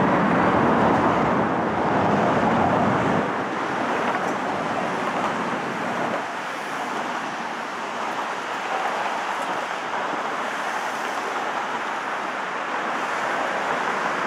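Steady road-traffic noise from cars on the bridge's roadway, with a heavier low rumble for the first three seconds that drops away suddenly.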